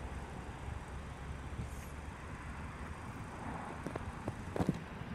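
A car engine idling nearby with a steady low hum, and a few light clicks and a sharper knock about four and a half seconds in.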